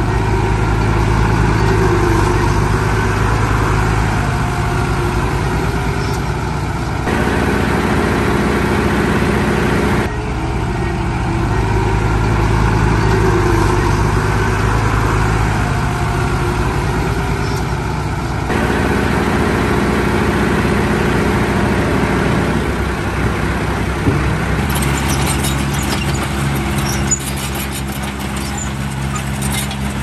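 Heavy diesel engines of earthmoving machines, bulldozers and dump trucks, running steadily. The engine note changes abruptly several times.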